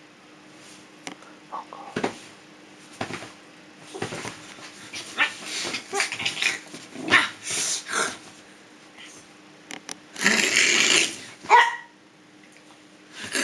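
Small dog barking and growling in rough play, a string of short barks with a longer noisy burst about ten seconds in and one sharp bark right after it.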